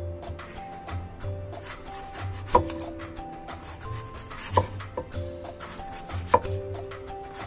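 A cleaver slicing through apples on a wooden cutting board, with three sharp knocks of the blade striking the board about two seconds apart. Background music plays throughout.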